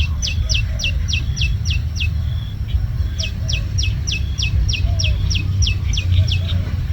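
A bird calling in two quick runs of high, sharply falling whistled notes, about four notes a second, with a short gap near the middle, over a steady low rumble.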